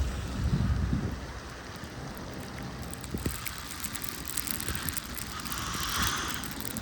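Outdoor city ambience in a snowstorm: a steady hiss with wind buffeting the microphone in the first second, then many faint light clicks.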